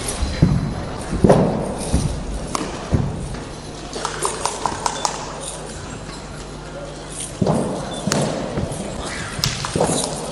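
Thuds and taps from a wushu spear routine on a competition carpet: foot stamps and the spear striking, coming in quick clusters near the start and again in the second half, with a quieter stretch between. A murmur of voices runs underneath.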